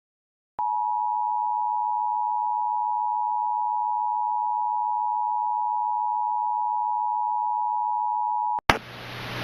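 Emergency Alert System attention signal: one steady, unbroken high tone held for about eight seconds. It starts about half a second in and cuts off near the end with a click, followed by a rising hiss.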